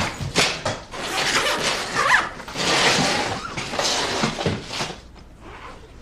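Rustling and knocking of clothes and bags being handled, with scattered clicks, dying down about five seconds in.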